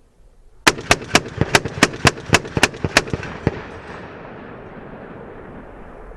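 M2 .50 caliber heavy machine gun firing one burst of about ten shots over some two seconds, followed by the report echoing and fading across the range.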